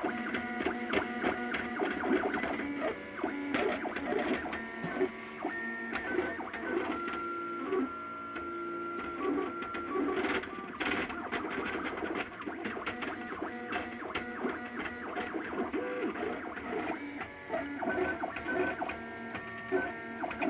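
MakerBot Thing-O-Matic 3D printer running a print. Its stepper motors sing in short steady tones that jump from one pitch to another as the print head moves, with faint clicks throughout.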